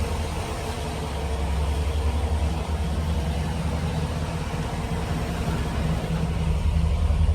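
1989 Chevy Caprice's 350 V8 idling steadily, run for a charging test of a newly installed alternator with the lights switched on.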